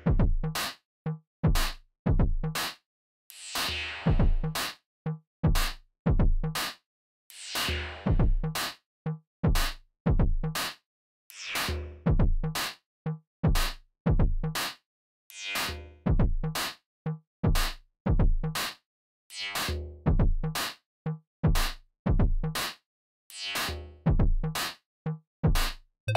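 Inear Display Ephemere glitch percussion synthesizer playing its Technoid kit preset: a steady electronic beat of short synthesized kick and click hits with silent gaps between them, some hits carrying bright hissing sweeps.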